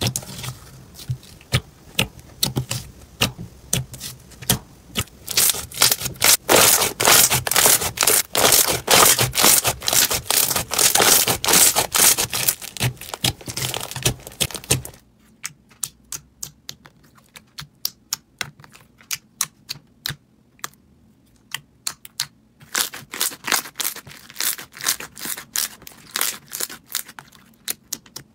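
Slime being pressed and squeezed by hand, giving rapid wet clicks and pops as trapped air bursts. The clicking is dense in the first half, thins out to scattered clicks about halfway through, then picks up again.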